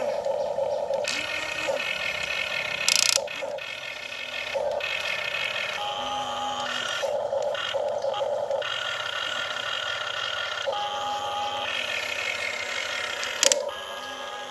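Small geared electric motors of a radio-controlled excavator whirring in stop-start bursts of about a second each, with a brief loud clatter about three seconds in and another near the end.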